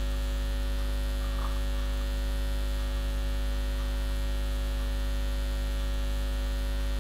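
Steady electrical mains hum: a low drone with a stack of overtones above it, unchanging in level.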